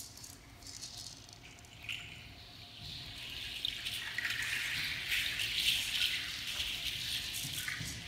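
Dancers' rattles shaken in a steady, dry hiss, building up from about three seconds in and holding. A few soft taps come before it.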